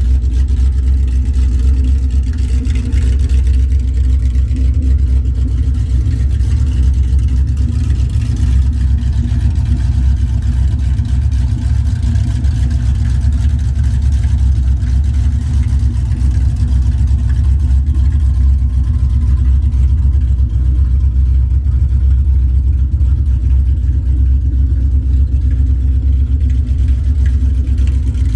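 A 426 Hemi V8 with open headers running steadily, with a loud, even low-pitched exhaust note and no revving.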